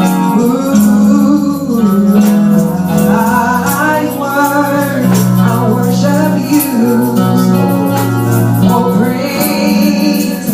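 A worship song: singing over instrumental backing with a steady beat.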